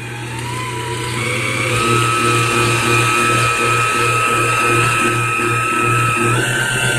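Electric tilt-head stand mixer running, its beater whipping cheesecake batter in a stainless steel bowl. A steady motor whine rises in pitch about a second in and then holds, over a low rhythmic pulse about twice a second.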